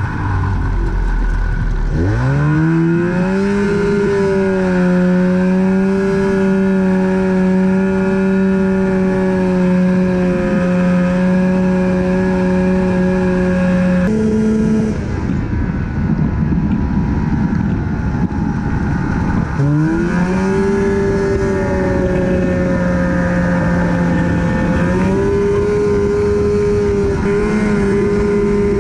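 Snowmobile engine heard from on board: it revs up about two seconds in and holds a steady high pitch under way, then drops and revs up again about twenty seconds in.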